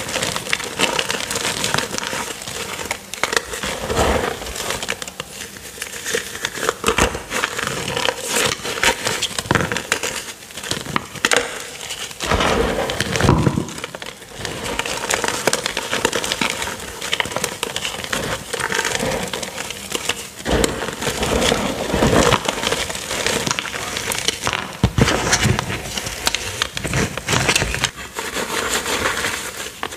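Hands squeezing and crumbling chunks of purple-dyed gym chalk dusted with cornstarch: dense crunching and crackling that swells with each squeeze.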